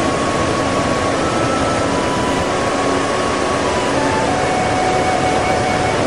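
Steady rushing noise of a waterfall's falling water, with faint held tones under it that shift in pitch every second or so.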